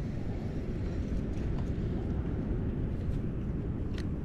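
Steady low rumble of wind buffeting the microphone, with one sharp click near the end.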